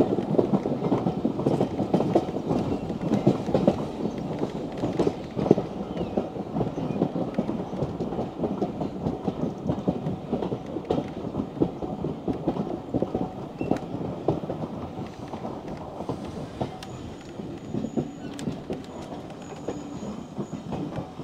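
Heritage railway carriage running on the rails, heard from on board: a steady rumble packed with fast irregular clatter from the wheels and running gear. It eases off in the second half as the train slows into the station, and a faint high squeal comes and goes near the end.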